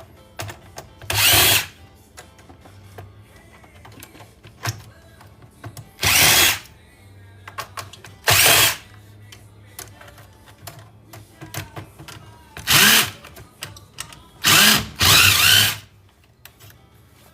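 Power drill run in six short bursts, each under a second, driving out screws to free a computer motherboard from its case. Faint music plays underneath.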